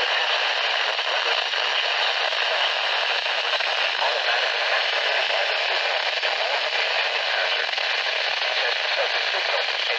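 Steady hiss of radio static from a weather radio receiver on a weak NOAA Weather Radio signal, with light crackle.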